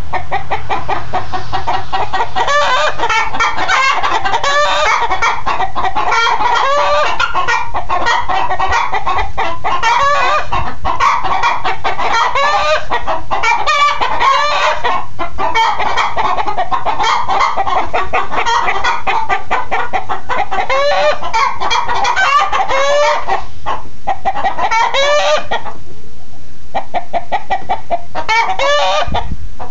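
Chickens clucking constantly, many short calls overlapping one another, thinning out a little near the end.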